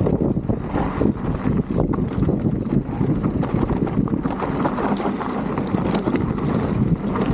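Mountain bike tyres rolling fast over loose gravel and dry marl on a descent, with a steady patter of small clicks and rattles from stones and the bike, and wind buffeting the camera microphone.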